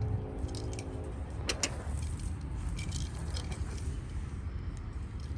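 Light metallic jingling and clicking: a few scattered clinks about a second and a half in and again around three seconds in, over a low rumble.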